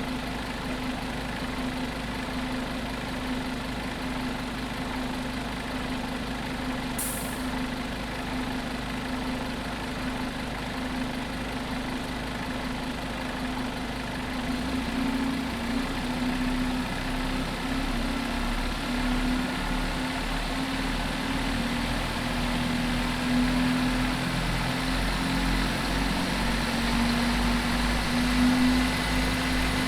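Scania OmniCity single-decker bus engine idling inside a large metal shed, with a brief hiss of air about seven seconds in. About halfway through, the engine note grows louder and more uneven.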